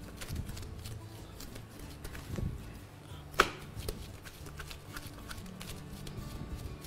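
Gloved hands working soft dough on a kitchen countertop: faint patting and rubbing over a low steady hum, with one sharp click about three and a half seconds in.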